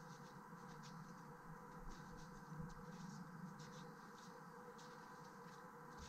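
Near silence: a faint background hiss with a few scattered, faint scratchy ticks.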